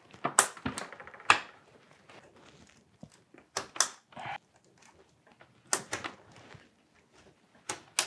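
RAM modules being handled and pressed into the motherboard's memory slots: a handful of sharp plastic clicks and knocks at irregular intervals, with soft handling noise between them.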